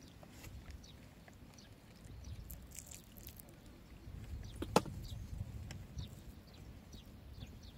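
Quiet outdoor background with a low rumble and scattered faint, high, falling chirps; one sharp click a little past halfway.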